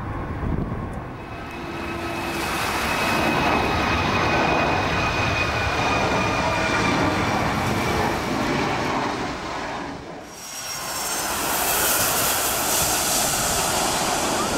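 Boeing 757 jet engines on low final approach: a rising engine rush with a high whine that slides slowly lower in pitch as the airliner passes. The sound drops away abruptly about ten seconds in, then returns as a louder, brighter rush of engine noise as the jet rolls out on the runway after touchdown.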